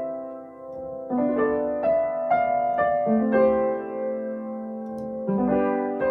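Piano playing a simple melody over chords; a chord struck about three seconds in rings on for about two seconds before the next notes.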